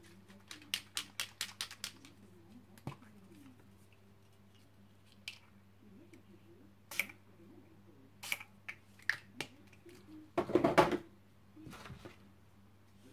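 Small pump-spray bottle of colour being worked over a homemade gelatin printing plate: a quick run of clicks about half a second in, then scattered single short clicks and spurts, and a louder, longer noisy burst about ten seconds in.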